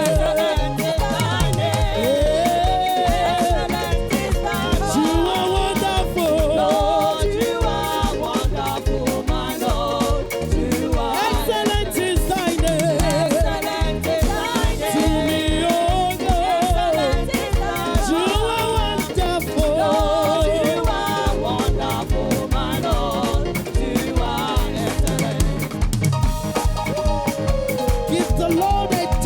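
Upbeat live praise music: a band playing a steady dance beat, with a wavering melodic line over it.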